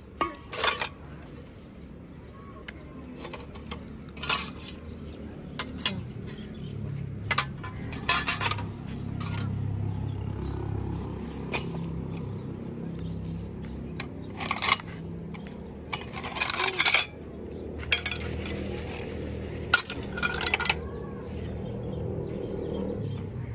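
Stainless steel plates, bowls and a spoon clinking and clattering now and then as they are handled and set down, with a busier cluster of clinks about two-thirds of the way in.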